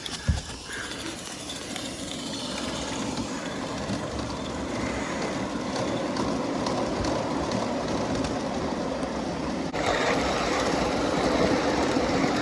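Wheels of a G-scale garden-railway train rolling along the track with a steady clickety-clack, picked up from a camera riding in one of the boxcars. The running noise grows gradually and is louder for the last few seconds.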